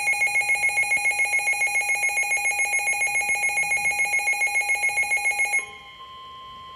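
Midland NOAA weather radio receivers sounding their built-in alert for a severe thunderstorm warning: a loud electronic beep, rapidly pulsing several times a second, which cuts off suddenly near the end. It is replaced by the broadcast's steady single-pitch warning alarm tone, much quieter, through the radio speaker.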